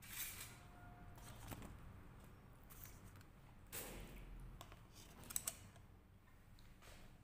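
Faint eating sounds from a metal fork working food on a foil-lined tray: scattered soft scrapes and rustles, and two sharp clicks close together about five seconds in.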